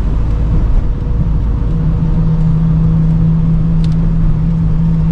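Car driving in the rain: low engine rumble with a steady hum that sets in after about a second and a half, over a constant hiss of rain and wet road. A short click about four seconds in.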